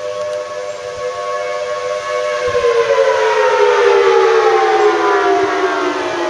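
Federal Signal Thunderbolt 1000T outdoor tornado warning sirens wailing on a steady pitch, then winding down. From about two seconds in the pitch falls steadily, and the sound gets louder midway.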